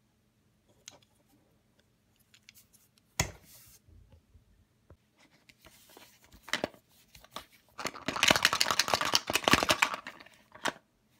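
Hands handling a plastic surprise egg: a sharp plastic click about three seconds in and scattered small clicks, then a couple of seconds of dense plastic crackling and crinkling near the end.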